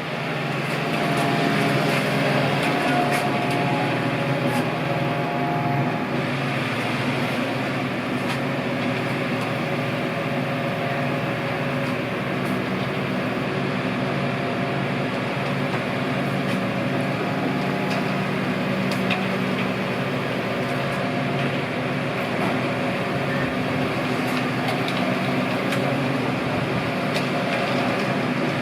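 Heavy equipment engine running steadily at a constant speed.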